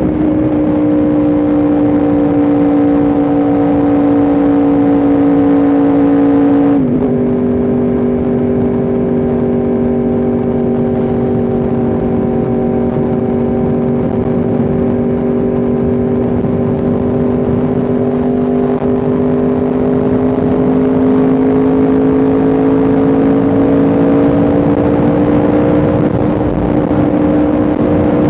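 Yamaha R1M's crossplane inline-four engine and exhaust under way, with wind noise. The engine note steps down sharply about seven seconds in, as at an upshift, then rises slowly and steadily as the bike gathers speed.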